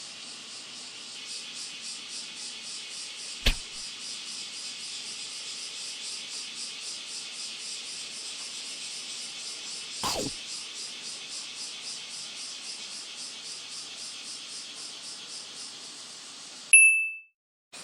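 A chorus of cicadas buzzing steadily with an even pulsing beat. Two sharp clicks break through, and near the end a brief loud high beep sounds before the audio cuts out for a moment.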